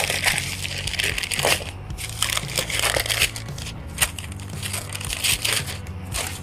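Stiff brown paper unfolded and crumpled by gloved hands: an irregular run of crackling and rustling.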